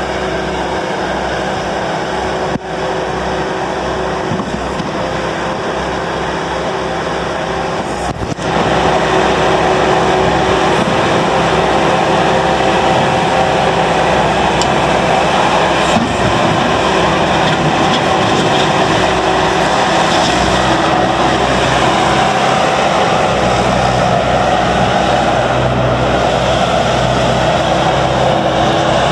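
The diesel engine of a 2006 Bobcat S300 skid steer loader running steadily. It gets louder about eight seconds in and holds there.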